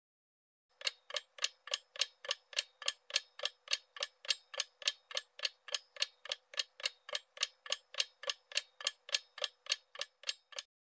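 Clock-ticking sound effect counting down a quiz timer: even, sharp ticks, about three and a half a second, starting about a second in and stopping just before the end.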